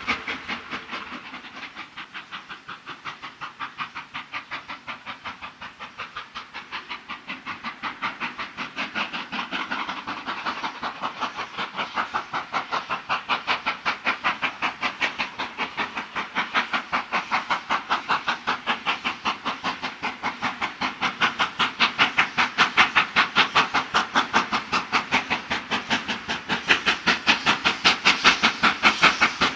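Steam locomotive hauling a passenger train, its exhaust chuffing in a fast, even rhythm with a hiss of steam, getting steadily louder as it approaches.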